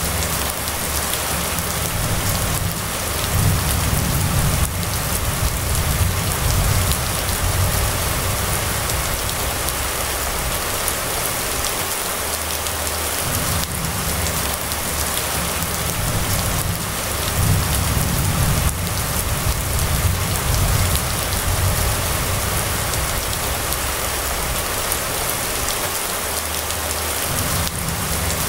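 Steady rain falling on a wet paved road, an even hiss, with a low rumble that swells and fades several times.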